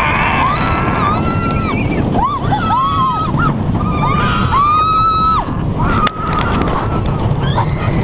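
Ride on the Wildfire steel roller coaster: wind rushing over the microphone and the train's rumble, with riders' voices screaming in repeated rising-and-falling cries. A brief sharp clatter comes about six seconds in.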